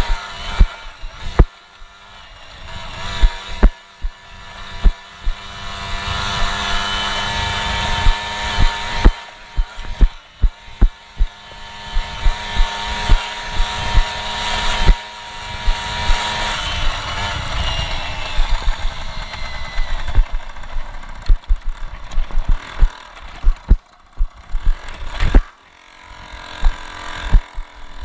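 Piaggio Ciao moped with Polini parts, its small two-stroke single-cylinder engine running under way, with frequent sharp knocks and thumps from jolts over the rough dirt track. The engine note eases down past the middle, drops lower briefly and picks up again near the end.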